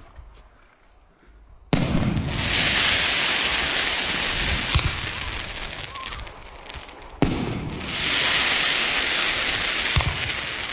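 Fireworks going off: a sharp bang about two seconds in, followed by several seconds of dense crackling hiss, then a second bang a little after the middle with another long crackle.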